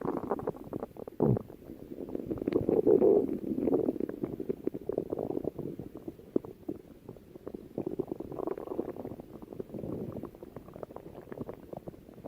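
A person's stomach growling: irregular, drawn-out rumbling and gurgling dotted with many small crackling pops. It is loudest about two to four seconds in and quieter afterwards.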